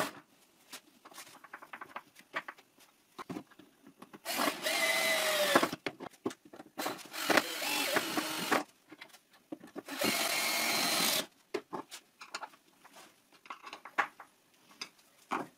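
Drill driver driving screws through a plunge router's metal base into a plywood board, in three runs of a second or two. The motor's pitch drops during the first run as the screw draws tight, with small clicks and knocks between the runs.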